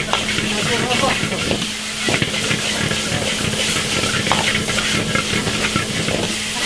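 Meat and peppers sizzling as they are stir-fried in a wok over a high open flame, with a metal ladle scraping and knocking against the wok as the food is tossed. A steady frying hiss runs under the short, irregular scrapes.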